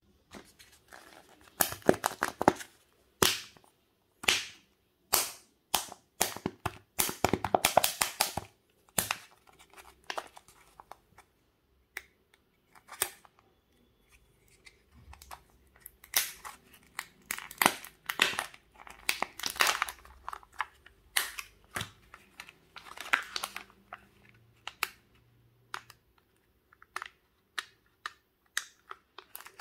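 Thin plastic wrapper crinkling and tearing as it is peeled off plastic surprise-toy eggs, in irregular bursts with sharp clicks and snaps of the plastic shells.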